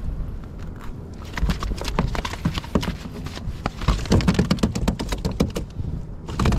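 Fishing reel being cranked to reel in a line, a fast, uneven run of small clicks and knocks from about a second in, stopping near the end.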